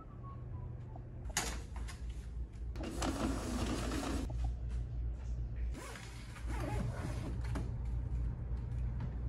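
Office multifunction printer running and feeding paper in two spells, about three seconds in and again around six seconds in, over a steady low hum.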